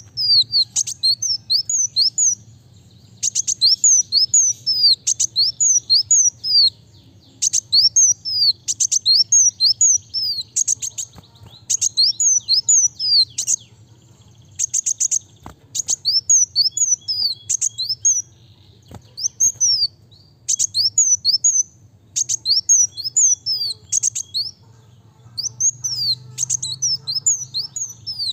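Male kolibri wulung sunbird singing a fast, dense song: rapid strings of short, high, downward-sliding notes in bursts of a second or two, with brief pauses between them.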